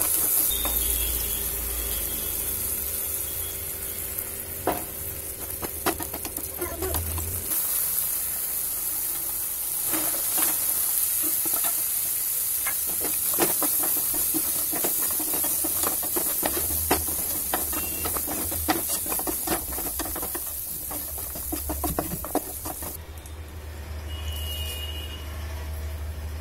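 Chickpeas, onions and green chillies sizzling in a nonstick frying pan while a wooden spatula stirs and scrapes them, with frequent short knocks against the pan. The sizzle drops away near the end.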